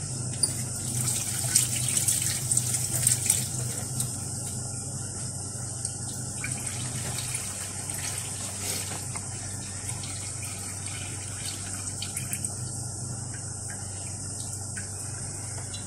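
A steady hiss over a low hum, with scattered crackles and small clicks during the first few seconds.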